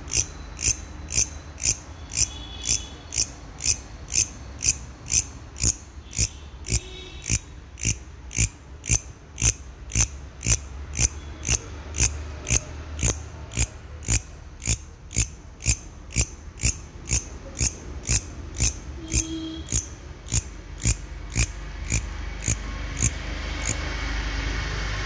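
Katydid (long-horned grasshopper) calling: a short, high, dry chirp repeated evenly about twice a second, which stops a couple of seconds before the end. A low rumble underneath grows louder near the end.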